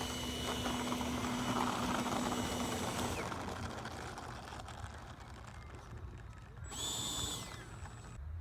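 Electric ducted fan of a 70 mm 6S RC jet at full throttle: a steady high whine for about three seconds, then fading as the jet flies off. About seven seconds in it passes fast and loud for under a second, the whine dropping in pitch as it goes by.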